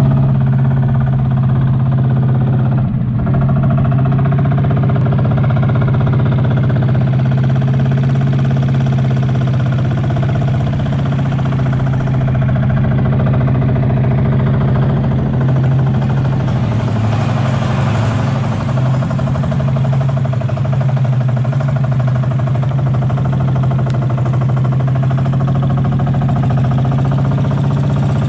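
Small motorboat's engine running steadily while the boat is under way, a loud, even low drone.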